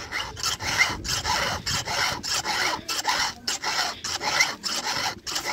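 Round chainsaw file rasping across the cutting teeth of a saw chain in steady back-and-forth strokes, about two a second: the chain being sharpened by hand.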